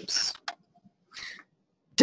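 A person's short breathy murmurs or exhalations, with one sharp click about half a second in, as presentation slides are clicked through.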